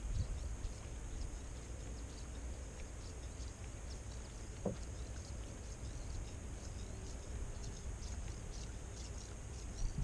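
Wind buffeting the microphone as a steady low rumble, over a faint high steady hiss with many scattered small ticks. One short knock comes about halfway through.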